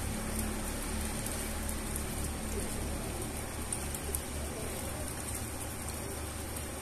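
Steady rain falling on wet concrete ground: an even hiss with scattered drop ticks, over a low hum that pulses a few times a second.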